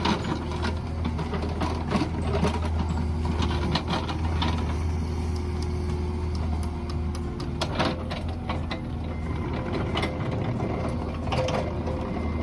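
Mini excavator's diesel engine running steadily, with a held tone that steps higher about two-thirds through and frequent sharp clanks and knocks from the working machine.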